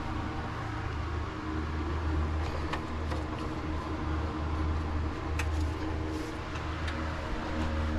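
A steady low mechanical hum, with a few light clicks and taps from parts being handled during engine work.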